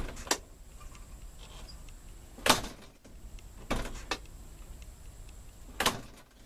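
Camper door latch and lock being worked: a series of sharp clicks and clacks, the loudest about two and a half seconds in, as the newly replaced lock mechanism is tested.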